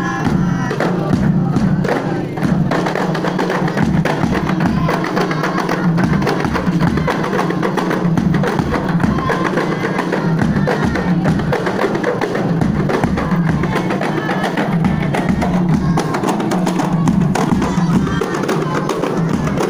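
A procession drum ensemble of hand-held rebana frame drums and a large barrel drum playing a steady beat, the low drum strokes coming evenly under the busier patter of the frame drums.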